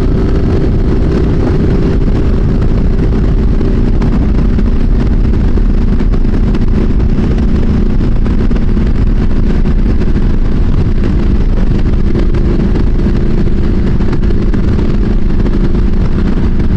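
Triumph SS900 motorcycle engine running at a steady cruise, rising slightly in pitch in the first second and then holding, under heavy wind noise on a helmet-mounted microphone from riding forward on a breezy day.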